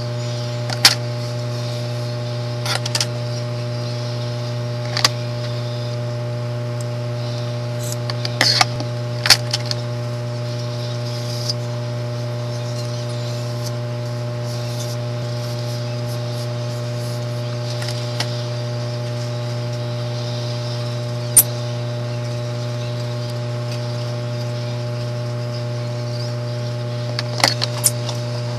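Steady low electrical hum, the loudest thing throughout, with scattered sharp clicks and brief rustles as hair is handled. One click comes about a second in, a small cluster about a third of the way through, one alone about three quarters through, and another cluster near the end.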